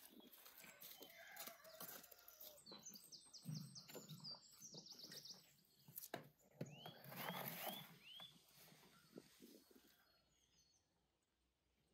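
Faint outdoor ambience of small birds chirping: a quick run of short high notes, then four rising chirps about seven seconds in. Scattered soft knocks, with a brief clatter about six seconds in as a metal baking tray goes into a clay oven.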